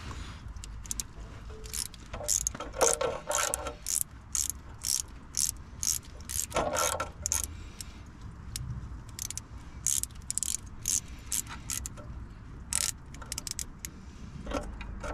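Hand socket ratchet clicking in repeated short strokes, about two a second, as a stiff bolt is backed out in an engine bay.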